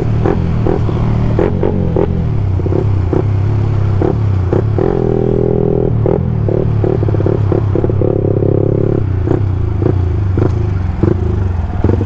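Bored-up 170 cc Yamaha MX King single-cylinder four-stroke engine running as the bike is ridden, heard over wind noise on the helmet microphone.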